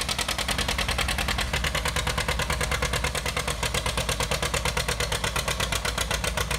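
John Deere 730 two-cylinder tractor engine under heavy load, pulling a weight-transfer sled with a rapid, even popping exhaust beat.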